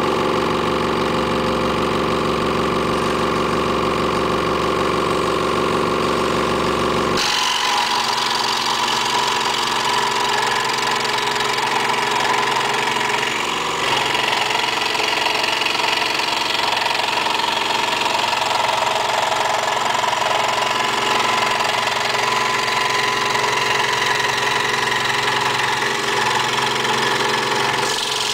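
Hegner scroll saw running steadily, its blade moving rapidly up and down. About seven seconds in the sound changes abruptly: the low hum drops away and a raspier sawing sound takes over as the blade cuts through stacked plywood guided by a straight-cut jig.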